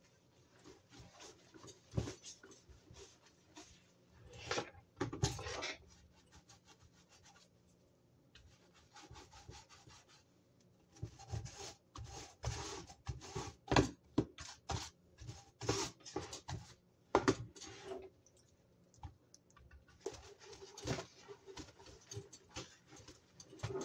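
Dish brush scrubbing a foam-covered toaster: runs of quick scratchy strokes with short pauses between them, and a few light knocks as the toaster is handled.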